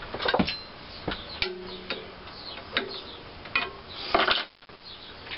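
Irregular light metal clicks and taps of a wrench being worked on the push rod of a stationary 1926 McCormick-Deering Type M engine, with a denser clatter about four seconds in.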